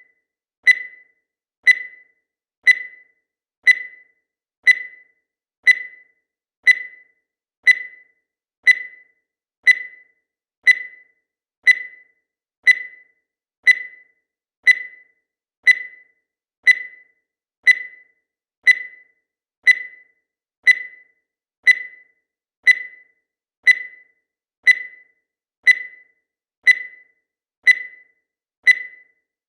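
Digital countdown timer beeping once every second: a short, high-pitched electronic beep that fades away quickly, repeated evenly about thirty times.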